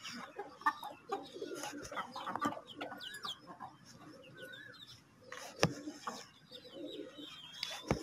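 Birds chirping and calling in the background, with a couple of sharp clicks, the louder one about five and a half seconds in.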